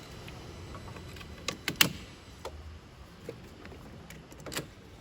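A few sharp clicks and taps over a faint low hum, the loudest two close together a little under two seconds in.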